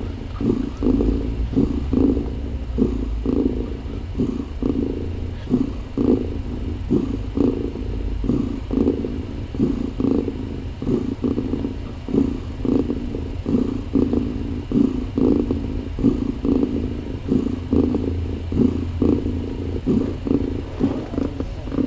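Mother cat purring as she nurses her newborn kittens: a deep rumble close to the microphone, swelling and fading in a steady run of pulses.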